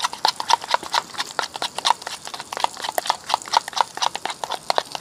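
Spoon stirring mayonnaise and pepper sauce in a bowl, clicking against its sides several times a second in a quick, fairly even rhythm.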